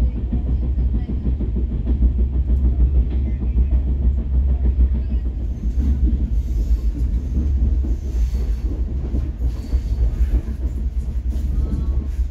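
Netravati Express passenger train running on the rails: a steady, dense low rumble of wheels and coach.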